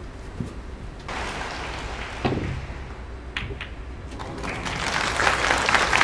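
Snooker balls clicking sharply about halfway through as a shot is played, then audience applause building up near the end.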